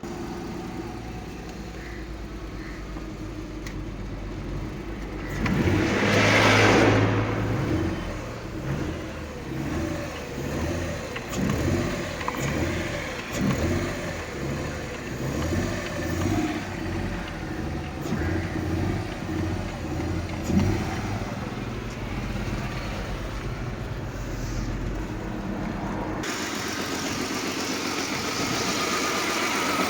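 Mercedes-Benz W211 E-Class engine running after the no-crank, no-start fault has been fixed. It comes in abruptly, swells loudly about six seconds in as it revs, runs with the revs rising and falling for a while, then settles to a steadier run.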